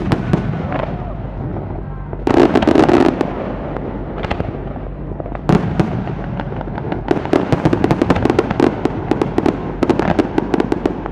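Fireworks exploding: a sharp bang at the start, a dense burst of booms a couple of seconds in, another bang about halfway, then a rapid run of crackling pops in the last few seconds.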